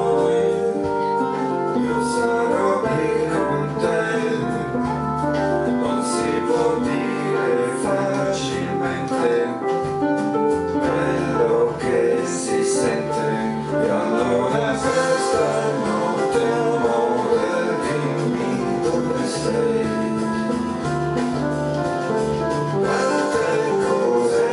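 Piano and keyboards playing an instrumental passage of a song with a band, with occasional cymbal hits.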